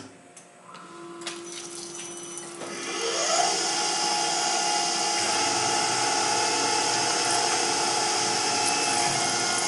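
Tormach PCNC 1100 CNC mill starting its program: a click, then the spindle spinning up with a rising whine that levels off about three and a half seconds in, under the loud, steady hiss of flood coolant spraying onto the aluminium plate.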